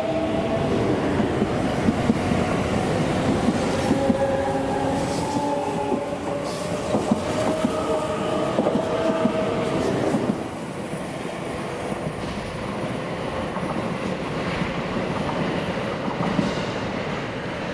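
A JR West Shirasagi limited-express electric train (681/683 series) pulls out past the platform: wheels clatter over the rail joints and the electric drive whines. The sound drops away about ten seconds in as the last cars pass, leaving a fainter rumble of the train moving off.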